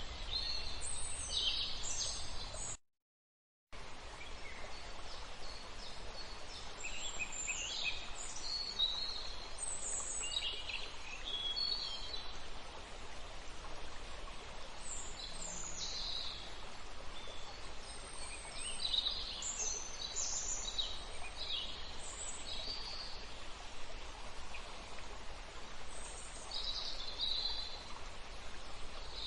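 Wild songbirds chirping and calling in short, high notes over a steady outdoor hiss. The sound cuts out completely for under a second about three seconds in.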